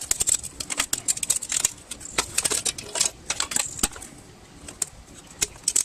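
Quick, irregular clicking and rattling of hand tools and small metal and plastic parts as a garage door opener is taken apart, coming in clusters with short pauses between.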